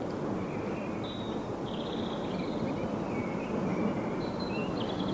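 Outdoor waterside ambience: a steady rush of wind, with faint, short bird calls at varied pitches scattered through it.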